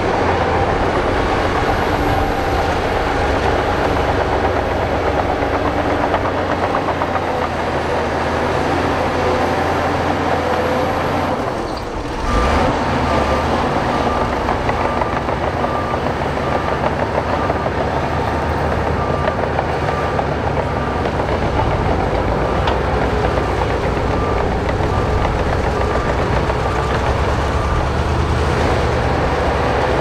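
Heavy diesel earthmoving machinery running steadily. About twelve seconds in, the sound dips briefly, then a reversing alarm beeps about once a second for most of the rest.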